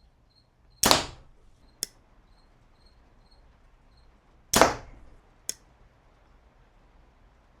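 A compound bow is shot twice, fired with a hinge release, about four seconds apart. Each shot is a loud, sharp crack of the string and limbs that dies away quickly, followed about a second later by a shorter, fainter click.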